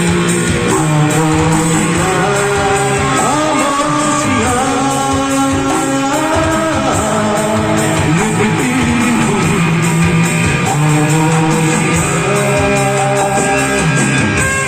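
Music: a guitar-led song passage with sustained, layered notes.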